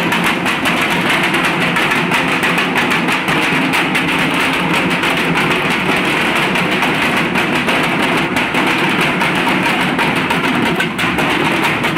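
Several large Bengali dhak drums beaten with sticks all at once in a loud, fast, unbroken rhythm.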